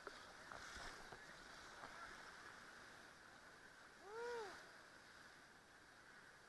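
Faint, even rush of white-water rapids around a paddle raft, with a short rising-and-falling shout from a rafter about four seconds in.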